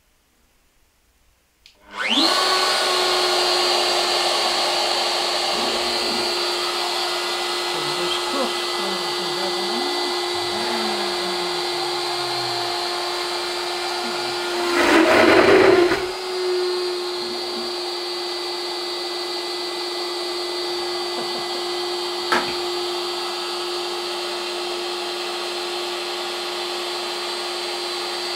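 Carbide 3D router spindle on a Shapeoko CNC router starting up about two seconds in and running steadily at about 16,000 RPM with a 6 mm single-flute end mill. Gliding tones from the moving gantry come and go. About halfway through there is a louder, harsher stretch of about a second and a half as the cutter meets the aluminium plate.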